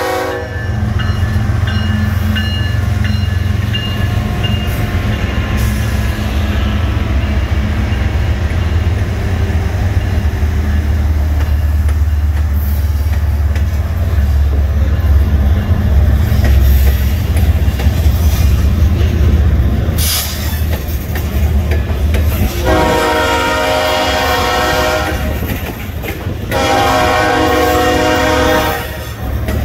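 Diesel locomotives of a loaded BNSF grain train running past with a loud low rumble, then two long blasts of the locomotive air horn near the end.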